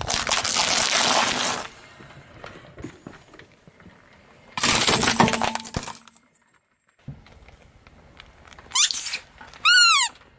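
A car tyre crushing crisp wafer ice cream cones with a loud crunch, then about four and a half seconds in cracking a hard plastic toy disc into pieces. Near the end a rubber squeaky toy gives a short squeak.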